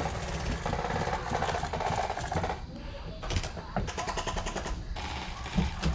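Electric gel blasters firing full-auto in long rattling bursts, the gearbox cycling rapidly. There is a break about two and a half seconds in, then more bursts.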